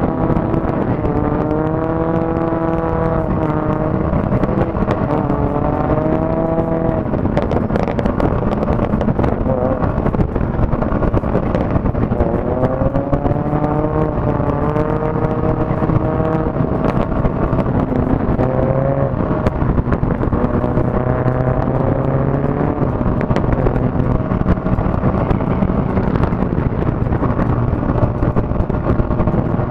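Motorcycle engine running at road speed, its pitch climbing slowly and then dropping several times as the rider accelerates and shifts gears, under a steady rush of wind and tyre noise.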